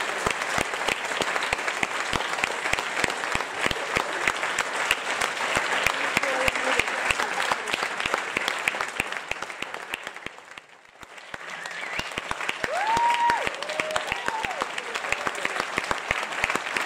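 Audience applauding steadily with dense clapping. The clapping dips briefly past the middle and picks up again, with a few cheers rising above it.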